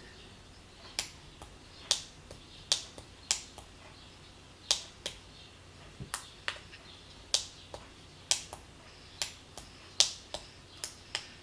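Tactile pushbuttons on a SparkFun Joystick Shield being pressed, giving about twenty sharp clicks at an uneven pace.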